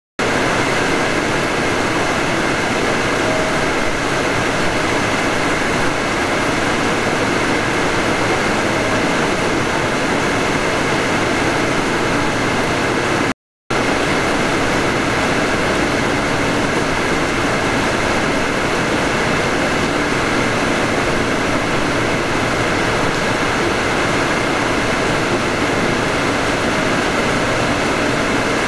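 Steady, even noise of a Hanshin 5500 series electric train as heard from the cab: a constant rush with a faint hum and no rail-joint clicks. The sound cuts out for a split second about halfway through.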